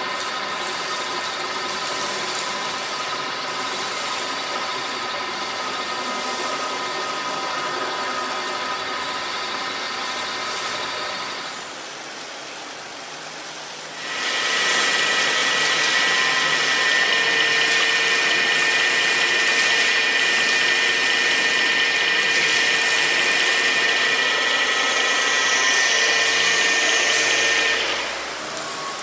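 Knuth VHF 1 milling machine running with a steady whine. It eases off about twelve seconds in, then comes back louder and higher from about fourteen seconds, and drops away again near the end.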